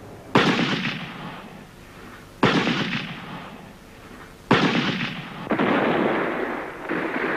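Battle sound effects of gunfire and explosions. Three sudden blasts come about two seconds apart, each dying away slowly, and a continuous loud din follows from about five seconds in.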